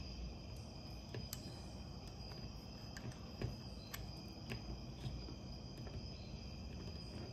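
Faint, scattered metallic clicks of a steel timing chain shifting in a chain riveting tool as the link is lined up with the pins, over a steady high-pitched whine and low hum in the background.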